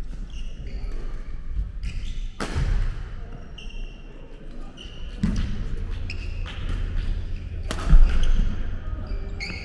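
Badminton rally on a wooden gym court: sharp hits of rackets on the shuttlecock, with short sneaker squeaks and footfalls on the floor. The loudest hit comes near the end.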